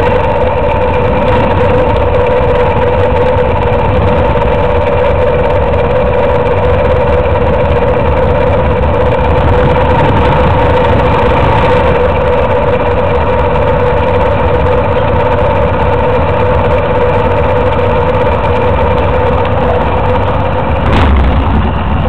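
Motorcycle engine running steadily, picked up by a microphone mounted on the bike, with wind buffeting the microphone and a steady whine held over it. A brief louder gust of low rumble comes near the end.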